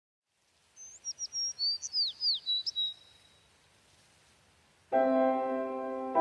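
A quick run of bird chirps and tweets, several notes sweeping downward, lasting about two seconds: a cartoon-bird sound effect for an animated logo. About five seconds in, keyboard music with held piano-like chords starts.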